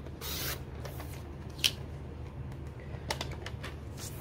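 Stampin' Up! paper trimmer's blade carriage drawn down the rail, slicing through cardstock in one short swish, followed by a few light clicks and taps as the trimmer and paper are handled.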